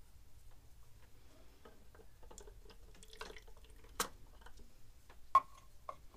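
Plastic syringe handled at a car's power steering fluid reservoir while excess fluid is drawn out: small scattered clicks and taps. There is a sharp click about four seconds in, then a louder tap with a brief ring about a second later.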